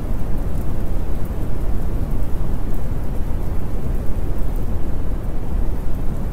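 Steady rain ambience with a constant deep rumble, like a thunderstorm recording, running on without a break.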